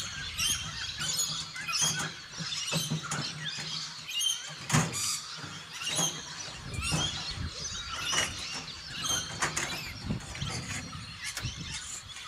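Knocks and clicks of gear being handled at the front of a camper trailer, with birds chirping and calling throughout.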